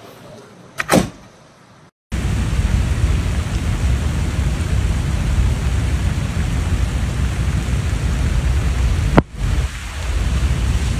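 Heavy rainstorm: a dense, steady rush of downpour with deep wind rumble on the microphone, starting abruptly about two seconds in. Before it comes a single sharp crack about a second in, and a brief sharp click comes near the end.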